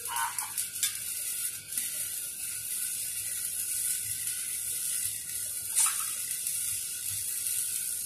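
Stick (shielded metal arc) welding on a 3-inch schedule 40 steel pipe: the electrode's arc gives a steady crackling sizzle, with a few sharper pops in the first second and again about six seconds in.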